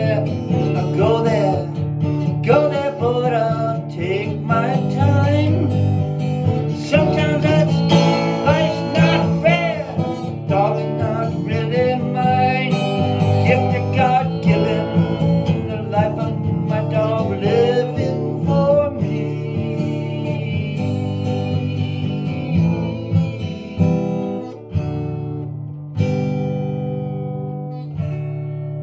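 Country-style guitar music: a plucked, bending lead melody over strummed acoustic guitar chords and a steady bass. Near the end it thins to a few single chords struck and left to ring.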